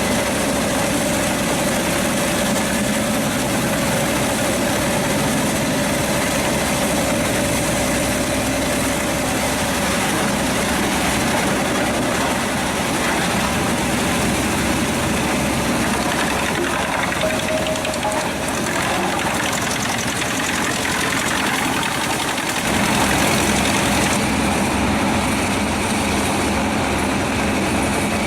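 Pezzolato PTH 900 M drum wood chipper running on its Scania DC09 five-cylinder diesel engine: a steady mechanical drone with a faint whine. About 23 seconds in, the sound shifts and grows slightly louder.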